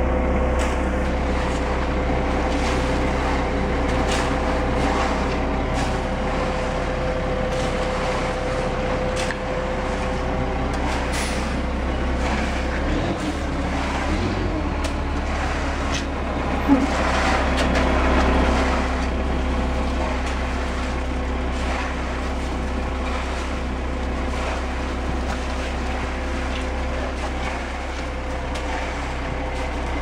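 Ready-mix concrete truck running steadily as wet concrete slides down its chute, with occasional scrapes and knocks from shovels and screed boards working the concrete.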